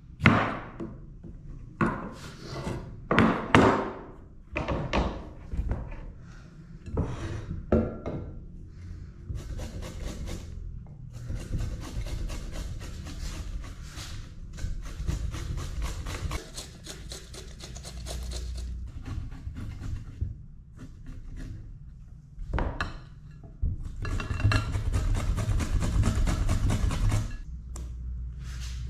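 A chef's knife cuts cucumber on a wooden cutting board in a series of separate strokes. Then cucumber is grated on a metal flat grater, a dense steady rasping that gets louder near the end.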